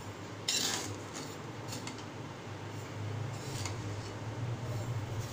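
Hot salt sifting through a wire-mesh skimmer into a steel kadhai as roasted black chickpeas are separated from it, with a short hiss of pouring salt about half a second in and light scrapes and clicks of metal on metal. A low steady hum runs underneath.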